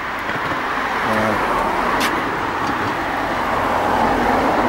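Steady rush of road traffic passing.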